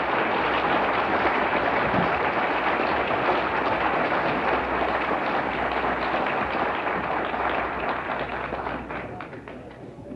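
Audience applauding: a crowd clapping steadily, dying away near the end.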